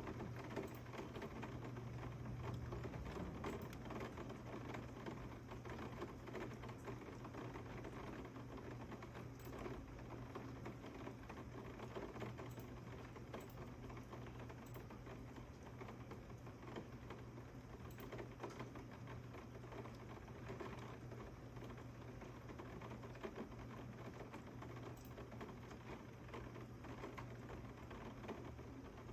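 Rain pattering steadily: a dense run of small ticks from drops hitting surfaces, with a low steady hum beneath.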